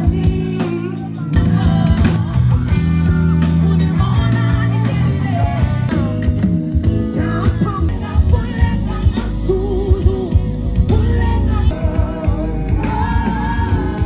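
Live band music with a woman singing lead into a microphone, backed by keyboard, electric guitar, bass and drums, heard through the outdoor PA.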